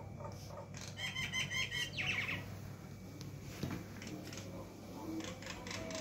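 Mynah calling: a quick run of about five repeated chattering notes about a second in, then a harsh falling call, followed by fainter chirps and clicks.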